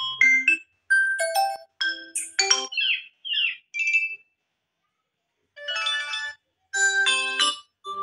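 Ringtone previews playing from a Poco M3 phone's speaker: a string of short, different chime-like melodies, each lasting under a second before the next begins, with a pause of about a second a little past halfway.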